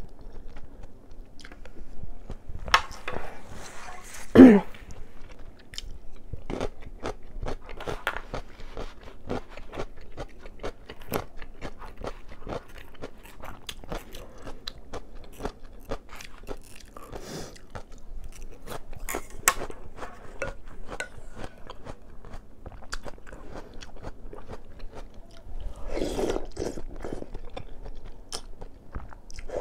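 Close-miked eating: steady chewing with many crisp crunching clicks, as in an eating-sound mukbang. Noodles are slurped from the soup at the start and again near the end, and one loud sudden sound comes about four seconds in.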